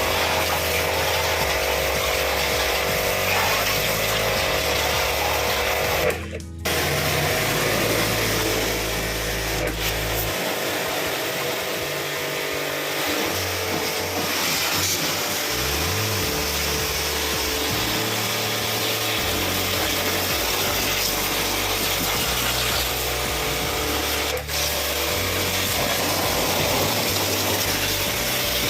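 Background music over a steady, loud noise like a running motor or spray, briefly cut off about six seconds in.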